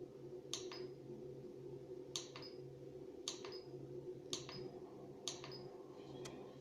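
BURNIT pellet stove running, its fan giving a steady low hum. Sharp clicks come in close pairs about once a second over it.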